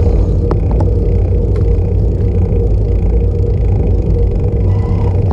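Wind rushing over the microphone of an action camera on a moving bicycle, a loud steady low rumble, with road and tyre noise underneath and a few light clicks.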